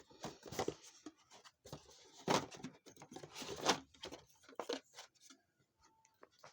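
Rustling and crinkling of a bag and box contents being handled and packed into a cardboard game box, with two louder rustles a little over two and three and a half seconds in.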